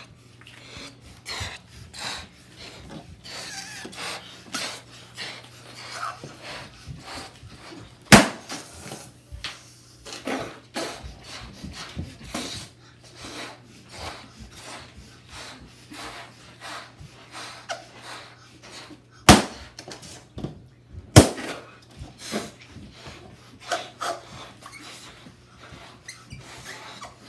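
Latex balloons being blown up by mouth in short breathy puffs, with three sharp bangs of balloons popping: one about eight seconds in and two close together around twenty seconds in.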